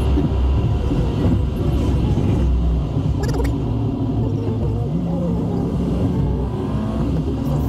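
Car engine running and road rumble heard from inside the moving car's cabin, with a steady engine hum coming up in the second half and a few brief clicks near the middle.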